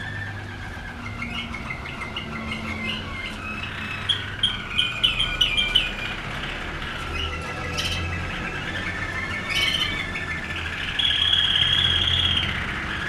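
Caged canaries singing: scattered chirps, a quick run of about six loud sharp notes, then a long even trill near the end.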